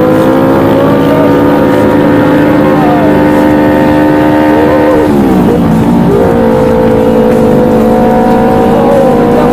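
Motorcycle with a Yamaha R25 250 cc parallel-twin engine, heard from the rider's seat under way at steady, slowly rising revs. About five seconds in the revs drop sharply and climb straight back.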